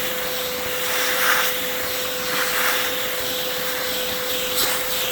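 Small Bissell portable carpet and upholstery cleaner running, its motor giving a steady hum and whine as it sucks at a stained mattress. The suction swells briefly a couple of times as the nozzle is worked over the spot.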